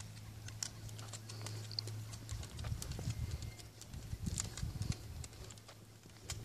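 Footsteps on a brick walkway: irregular short knocks, about two a second.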